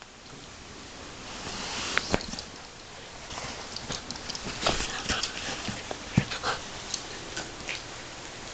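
A puppy chewing and gnawing on a knotted rope toy: steady rustling with scattered sharp clicks and knocks.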